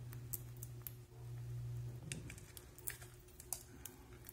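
Cockatiels pecking and cracking seed in a plastic feed dish: irregular small sharp clicks, several a second. A low steady hum runs under the first half and stops about two seconds in.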